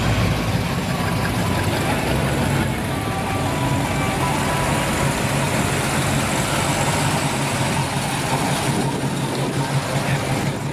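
Engine of a 1969 Chevrolet Camaro running steadily at low speed as the car rolls slowly past, with a low, even hum.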